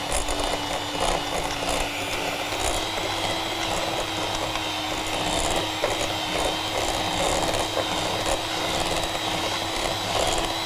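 Electric hand mixer running steadily, its beaters creaming butter and sugar into a crumbly ghribia dough in a glass bowl. The motor's whine rises slightly about two seconds in.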